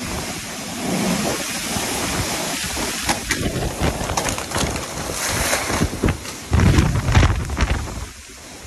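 Monsoon storm winds gusting hard with heavy rain: a loud, steady rushing noise with the wind buffeting the phone's microphone, swelling into the strongest gust about two-thirds of the way through.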